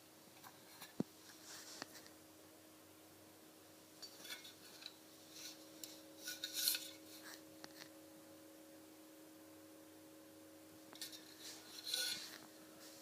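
Handling noise: scattered rubbing and scraping with sharp clicks, coming in three bursts, the loudest in the middle, over a faint steady hum.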